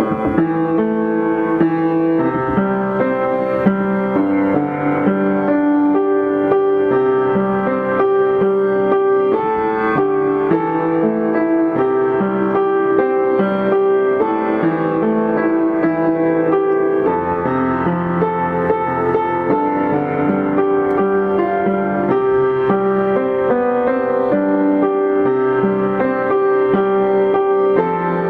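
Instrumental background music with piano, playing steadily.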